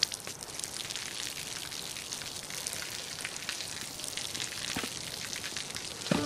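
A stream of water falling from overhead and splashing onto the pavement and into a bucket: a steady hiss of spattering water, flecked with many small drop ticks.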